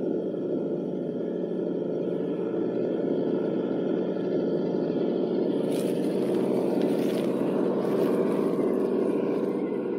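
6x6 Unimog's engine running steadily at a constant pitch. About six seconds in, a higher hiss joins it.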